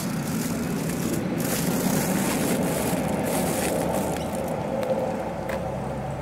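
A vehicle running past with a steady rumble that builds over the first couple of seconds and then holds, with a faint whine and a few sharp clicks in the second half.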